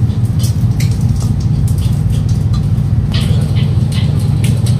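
A steel spoon scraping and clicking against a stainless steel bowl as it stirs a soft potato-and-vegetable mixture, over a loud steady low machine hum.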